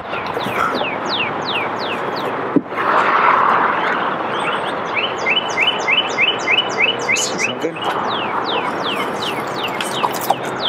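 A songbird singing: runs of quick downward-sliding chirps, about three a second, with a faster series of short even notes around the middle, over a steady background rush.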